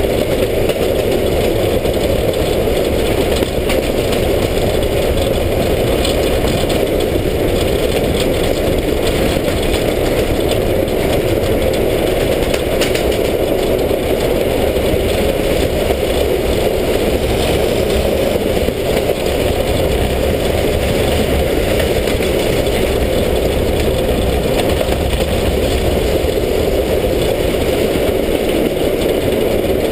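Steam locomotive 33-037, a 2-10-0 of JŽ class 33 (the former German class 52), running along the line, heard close beside its wheels: a loud, steady din of running gear and wheels on the rails with wind rushing past.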